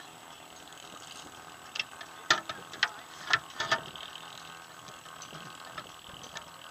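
A string of sharp, irregular metallic clicks and ticks, about half a dozen between two and four seconds in, over a faint steady background.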